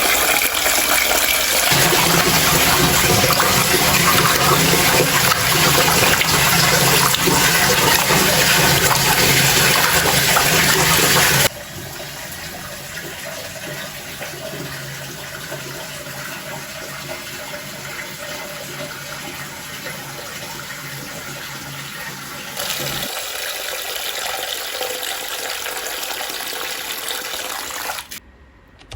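Water running and splashing steadily. It is loud at first, drops suddenly to a quieter level after about eleven seconds, and grows a little louder again near the end.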